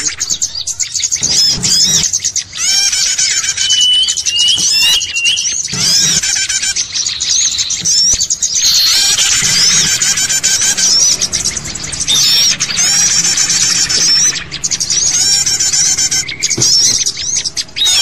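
Dense, continuous chorus of many small birds chirping in agitation, with rapid high-pitched repeated and upslurred notes. It is a bird-trapping lure call played to draw wild birds in.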